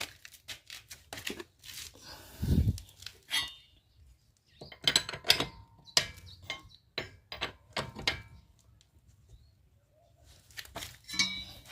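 Wheel spanner and metal extension bar clinking and knocking against the wheel nuts as they are worked loose, in irregular separate clanks with pauses, and a duller thud about two and a half seconds in.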